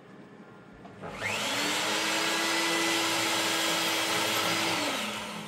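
Small high-speed rotary tool spinning up about a second in, then running steadily with a high hiss and whine as it cuts into a circuit board to trim its width. It winds down near the end.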